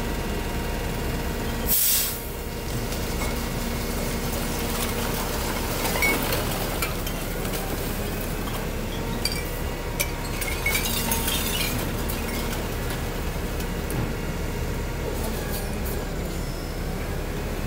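Natural-gas garbage truck running steadily as its load of recyclables slides out of the raised tailgate, with scattered clinks and rattles of bottles and cans falling. A short burst of hissing air comes about two seconds in.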